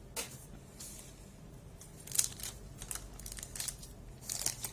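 Kayou trading cards and their foil pack wrappers being handled: a series of short crinkling, rustling noises, the sharpest about two seconds in and another cluster near the end.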